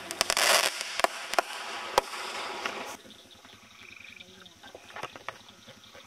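Fireworks going off: a dense burst of crackling with several sharp bangs, its hiss dying away about three seconds in, then a few faint scattered pops. Frogs call in short trills between the bursts.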